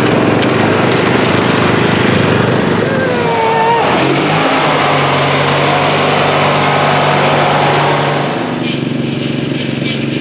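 Riding lawn mower engines running close by, with a short wavering squeal about three to four seconds in. Near the end the engine sound drops to a quieter, more distant drone.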